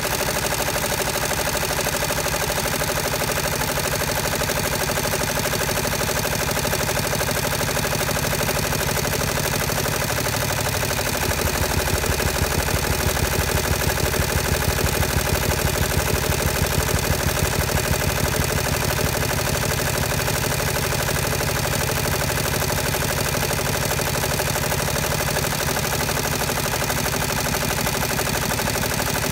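Multi-needle embroidery machine running, its needle stitching fast and evenly through quilted bag fabric in a rapid mechanical patter. It gets somewhat louder for several seconds around the middle.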